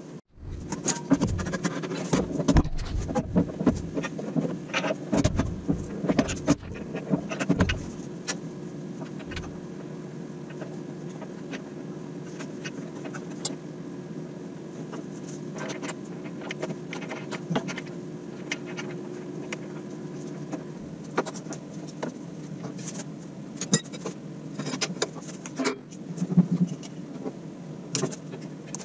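Bandsaw's metal table being set back onto its mount, with heavy clunks and knocks for the first several seconds, followed by scattered metal clicks and taps of tools as it is fastened and the insert is fitted. A steady hum underneath stops about two-thirds of the way through.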